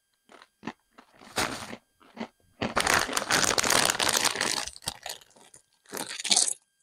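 Dorito-style tortilla chips being crunched and chewed: scattered sharp crunches at first, then a dense stretch of crunching lasting about two seconds, with the snack bag crinkling as it is handled.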